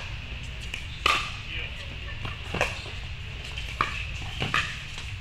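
Pickleball paddles striking a plastic ball in a doubles rally: sharp pops about once a second, the loudest about a second in, over a steady low hum.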